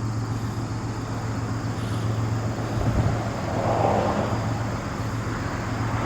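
Steady low engine hum over outdoor traffic noise, with a brief swell of passing-vehicle noise about four seconds in.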